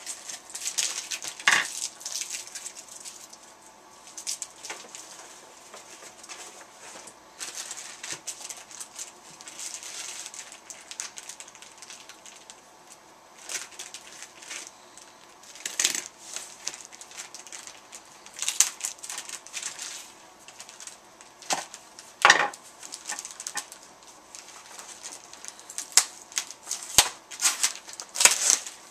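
Packaging being handled and worked open by hand: irregular crinkling and rustling with scattered sharper crackles and clicks, a few louder strokes about a second and a half in, about two-thirds through and near the end.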